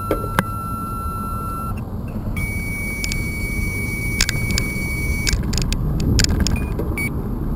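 Wind rumble on the microphone and road noise from a bicycle riding over cracked asphalt, with clicks and rattles from the bike on bumps and a thin, steady high whine that stops and comes back at a higher pitch.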